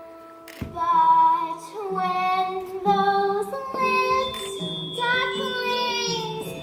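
Young voices singing a musical-theatre song over instrumental accompaniment.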